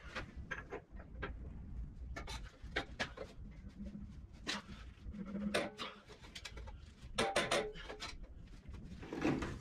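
Scattered clinks and knocks of hand tools on metal as work goes on at the front of a Massey Ferguson TO-35 tractor, with a few short low tones in between.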